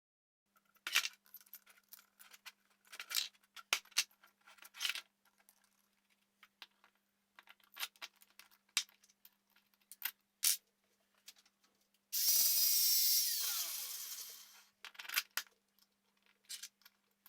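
Steel parts and bolts clinking and knocking as they are fitted and screwed together. About twelve seconds in, a power drill runs for about two seconds and winds down with a falling whine.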